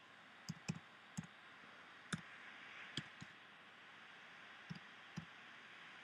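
Keystrokes on a computer keyboard, about eight faint, sharp clicks at an uneven pace as a number is typed in, over a low hiss.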